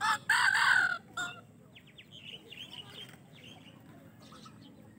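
Serama bantam chicken giving a loud call about a second long, then a short second call, followed by softer, quick clucks and chirps.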